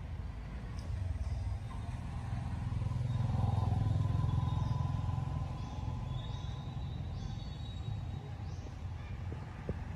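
A motor vehicle's engine rumble passing by, swelling to its loudest about four seconds in and then fading, with a few faint short high chirps over it.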